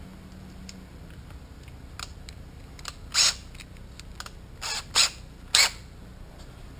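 Cordless drill and bits being handled while a bit is changed: a few light clicks, then three short, sharp mechanical snaps in the second half, the last two close together.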